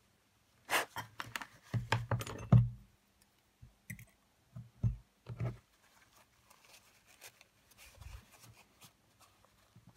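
Small toothbrush scrubbing and scratching, with taps from small parts being handled on a tabletop: a quick run of scratchy strokes and knocks in the first three seconds, loudest toward its end. Then a few separate light knocks, and faint rustling of tissue paper near the end.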